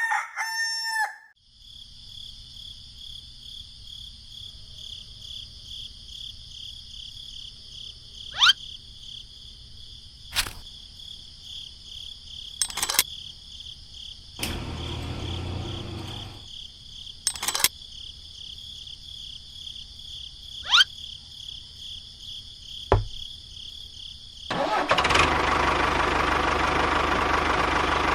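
A rooster crowing at the very start, then a steady high insect-like buzz with scattered clicks and a couple of short rising chirps. About 25 seconds in, a louder steady mechanical noise with a low rumble comes in, like a small engine running.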